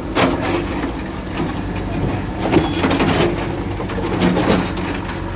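Bulldozer's diesel engine running steadily under repeated knocks and clattering of breaking masonry and falling rubble as a structure is torn down.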